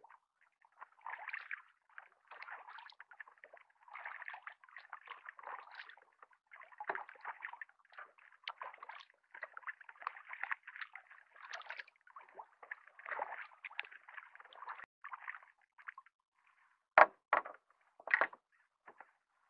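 Kayak paddling: a double-bladed paddle dipping and pulling through calm water, with irregular soft splashes and drips off the blades. Near the end the paddling stops and three short, sharp knocks follow.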